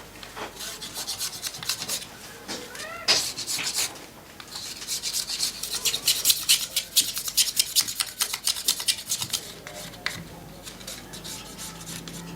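Quick, repeated rasping strokes of a tool scraping or filing bamboo, heaviest in the middle of the stretch.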